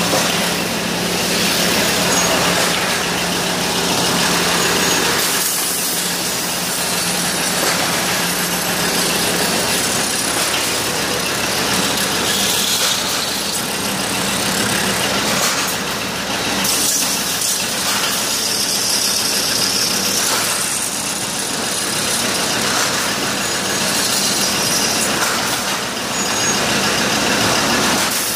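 Metalworking factory machines running steadily, a loud even din with a low hum, among them a thread-rolling machine rolling threads onto steel rod under flowing coolant.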